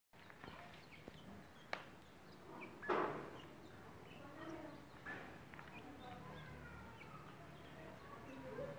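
Grey francolin chicks giving soft, short, high peeps while eating from a hand, with a couple of sharp clicks early and a louder scuffing noise about three seconds in.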